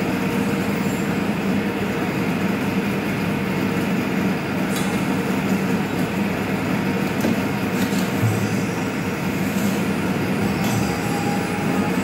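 Pipe-bending machine running with a steady mechanical hum as it clamps and bends a steel tube, with a few light clicks from the mechanism partway through.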